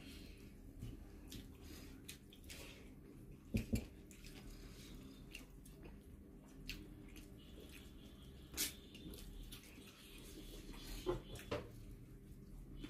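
Fingers mixing rice and prawn curry on a metal plate: soft wet squishing, broken by a quick double click about three and a half seconds in and a few single clicks later.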